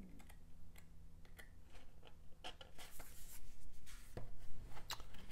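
Paper rustling as the pages of a thick booklet are flipped and handled: a scatter of light ticks and page noises, with a longer sliding rustle about halfway through.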